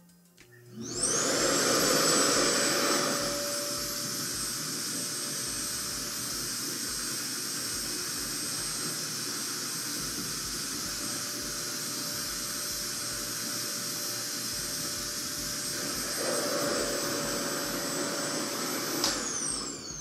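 RevAir reverse hair dryer's suction motor switching on with a quick rising whine, then running steadily with a high whistle over a rush of drawn-in air while the wand sucks a section of wet hair dry. It cuts off with a click near the end and whines down.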